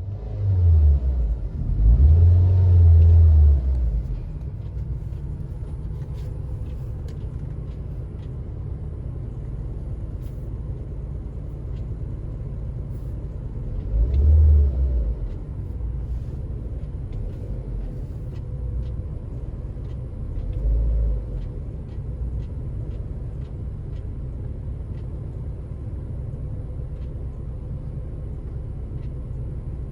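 2006 Ford Focus engine running at a steady idle, revved briefly near the start and again twice later, with newly fitted ignition coil packs.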